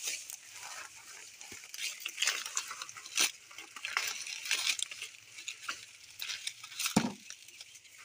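Dry maize husks crackling and tearing as ears of corn are stripped by hand, with dry stalks and leaves rustling, in a run of short irregular rustles. One louder thump about seven seconds in.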